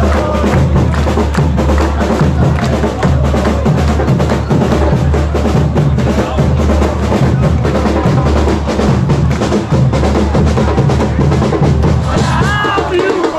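Football supporters' bateria (drum section) playing a fast, steady rhythm led by bass drums, with other percussion on top.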